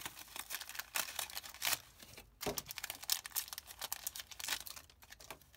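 Foil wrapper of a Pokémon booster pack being crinkled and torn open: a dense, irregular run of crackles and rips.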